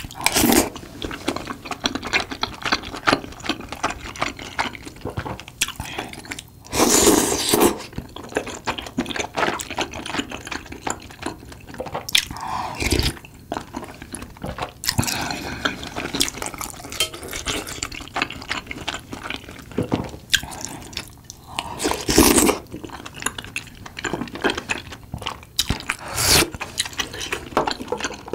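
Close-miked wet mouth sounds of eating soupy tteokbokki: slurping the thin sauce off a spoon and chewing the rice cakes, with several louder slurps spread through.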